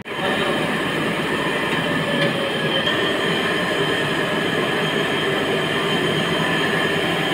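Industrial band knife fabric-cutting machine running, its blade and wheels giving a steady whine over a hiss at an even level while fabric is pushed into the blade.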